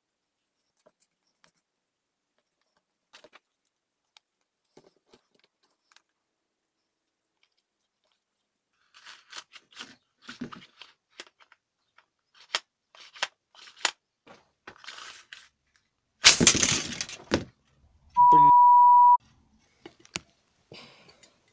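Small clicks and rattles of plastic starter parts being handled as a chainsaw's recoil starter pulley and greased spring cassette are fitted into the starter cover. About 16 s in comes a loud sudden clatter lasting about a second, then a steady beep of about a second, like an editor's censor bleep.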